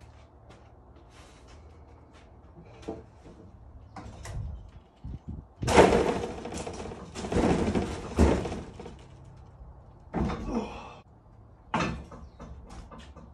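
A heavy timber garden table being tipped on its edge and lowered back onto metal trestles: wood scraping and knocking against wood and metal, loudest about six and eight seconds in, with a last sharp knock near the end.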